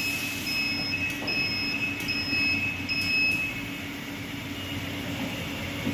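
Vacuum leak tester's electronic buzzer beeping about five times at an even pace, then stopping about three and a half seconds in, over the machine's steady hum and hiss.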